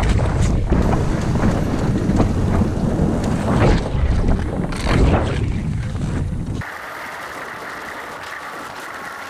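Wind buffeting the microphone, with gusty swells and scattered knocks, cutting off abruptly about two-thirds of the way in to a quieter, muffled sound.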